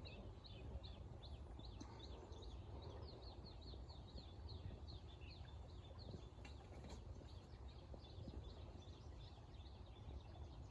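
Faint, quick repeated chirping of a bird, about three short high chirps a second, over a steady low background hiss.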